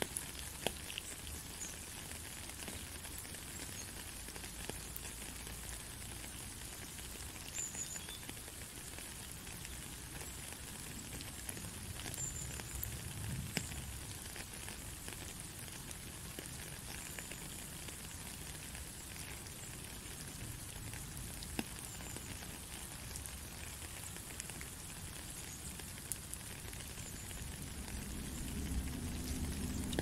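Steady rain falling: an even hiss full of fine ticks from the drops. A low rumble swells in near the end.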